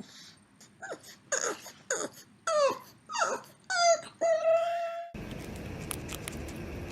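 An animal's series of short high-pitched whining cries, each sliding down in pitch, ending in one longer held cry. It cuts off abruptly about five seconds in, giving way to a steady hiss of background noise.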